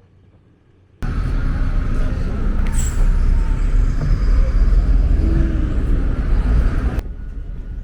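Loud road-traffic rumble, a heavy vehicle running close by. It starts abruptly about a second in and drops off sharply about a second before the end.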